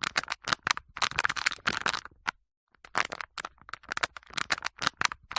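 Paper cups being handled, giving quick runs of crackling, rattling clicks with a short break about two and a half seconds in.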